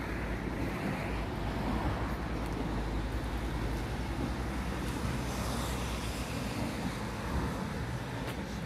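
Steady outdoor background noise: a deep rumble with a hiss above it and no distinct event.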